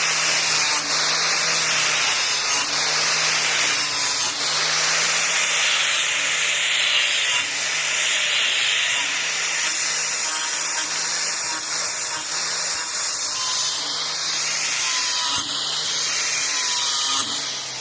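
A handheld power tool fitted with an abrasive pad runs steadily against the edge of a steel lawnmower blade, smoothing the freshly sharpened edge. It keeps a constant motor hum under a loud hiss of abrasion and winds down just before the end.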